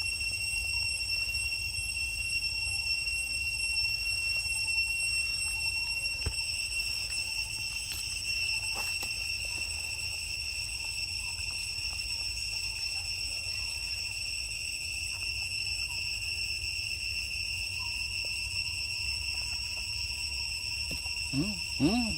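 Insects drone steadily in several held high tones over a low rumble. A few short rising-and-falling vocal sounds come near the end.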